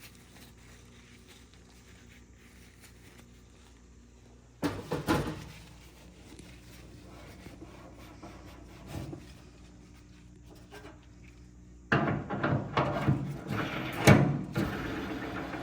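Knocks and clatter from a clothes dryer being handled and worked on. There is a short cluster of knocks about five seconds in, one lighter knock a few seconds later, and a longer run of repeated clattering knocks in the last few seconds.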